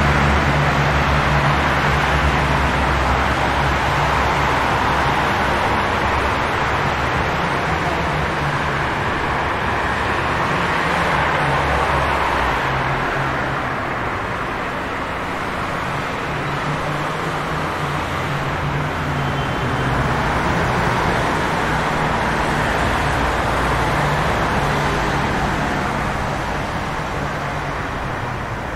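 Streetcar and road-traffic ambience: a steady low motor hum under a continuous hiss of noise, slowly swelling and easing, with no distinct single event.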